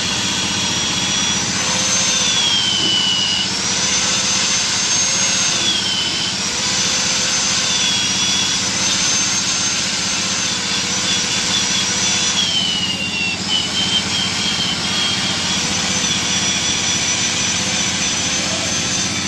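A handheld electric drill runs continuously with a high whine, its bit working in the valve seats of an aluminium cylinder head. The motor's pitch drops several times, about two, six and twelve seconds in, as the bit loads up, then climbs back.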